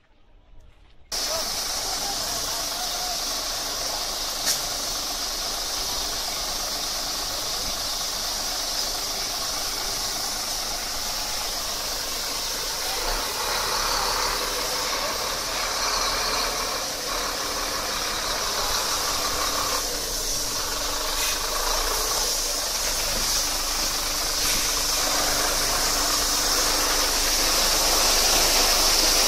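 Spray nozzles of a truck wheel-wash bay jetting water onto a dump truck's wheels and underside: a steady hiss that starts abruptly about a second in and grows a little louder near the end, with the truck's engine running underneath.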